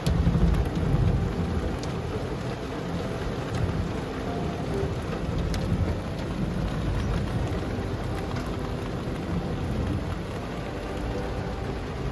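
Heavy rain drumming on a car's roof and windows, heard from inside the closed car: a dense, steady patter with scattered sharper drop hits. A louder low rumble swells in the first second or so.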